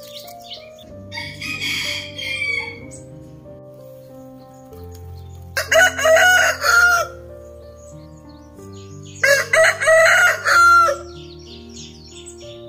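A rooster crowing twice, loud, about four seconds apart, over soft background music. A short rustling noise comes about a second in.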